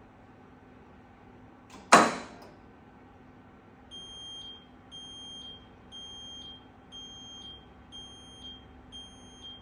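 A loud clunk from a Danube 20 kg washing machine about two seconds in, then its high electronic beep repeating about once a second, each beep lasting about half a second: the signal that the wash cycle has finished.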